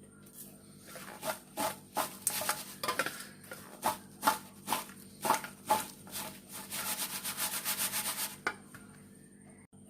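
Salted French fries being handled and tossed on tissue paper: a string of crisp rustles and light knocks about twice a second, then a short stretch of fast, continuous rustling near the end.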